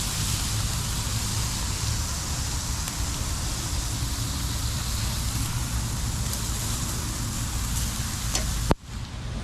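Burgers sizzling on a grill over a fire pit: a steady hiss with a low rumble underneath. Near the end a sharp click comes and the sound drops away briefly.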